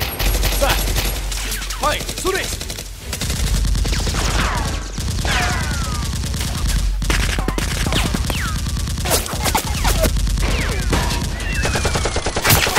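Dubbed movie-style gunfire sound effects: dense bursts of rapid automatic fire with single shots in between.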